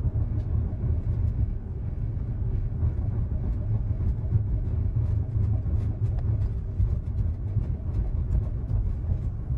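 Steady low rumble inside a moving ULTra personal rapid transit pod as its rubber tyres roll along the guideway, with a few faint clicks and rattles.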